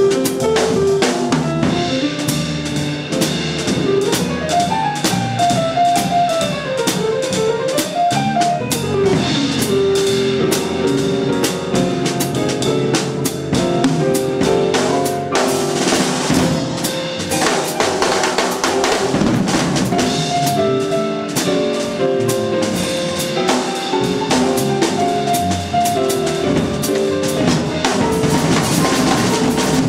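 Live trio of drum kit, electric guitar and piano playing, the drums to the fore with busy snare, bass drum and cymbal strokes under melodic lines that rise and fall.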